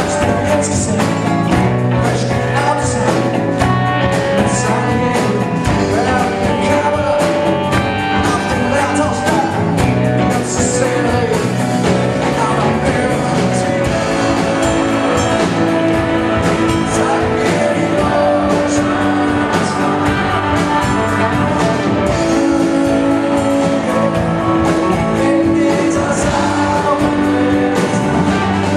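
Live rock band playing a song: electric and acoustic guitars, bass, drum kit and keyboard, with a man singing lead.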